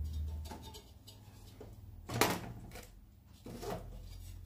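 Aluminium heat-sink panels of a power amplifier being moved by hand inside its metal chassis: scattered handling knocks and scrapes, with a louder knock about two seconds in and another a second later.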